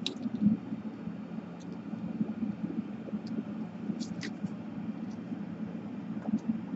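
A steady low hum of background noise, with a few faint clicks and taps as a small brushless motor's wires and nearby tools are handled.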